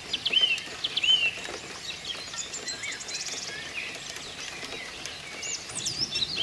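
Several songbirds singing in a dawn chorus. A repeated arched note in the first second or so gives way to varied chirps, a fast trill about three seconds in and higher swooping notes near the end, over a steady faint hiss.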